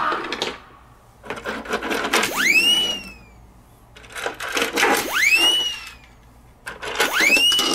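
Three cartoon sound effects, each a short clattering rattle with a whistle-like tone that sweeps sharply upward and then sags back a little, with quiet gaps between them.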